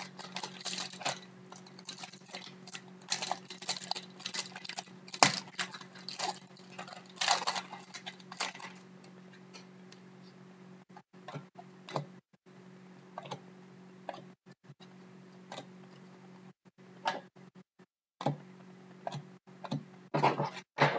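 A foil trading-card pack wrapper crinkling and tearing open with dense crackling for about the first eight seconds. Then the hockey cards are handled and flicked through, with sparser single clicks and slides.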